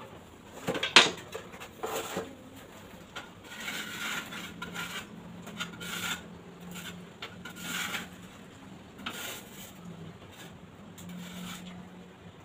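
Metal trowel clinking against a mortar container and scraping mortar. One sharp clank comes about a second in, then a string of short scrapes.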